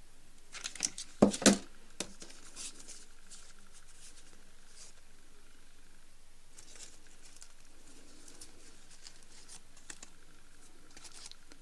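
Hands handling foamiran pieces on a wooden table: rustling and light knocks, with two sharp knocks about a second and a half in, then faint scattered rustles.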